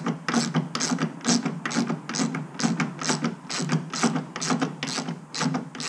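Hand ratchet with a 7/8-inch socket clicking in quick, even strokes, about four clicks a second, as it runs a nut down a 5/8-inch wheel stud held in a bench vise to chase the stud's rough threads.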